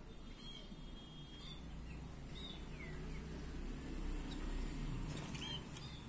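Small caged finches giving sparse, thin, high chirps, including one held whistle about half a second in and a call that slides downward near the middle, over a steady low hum.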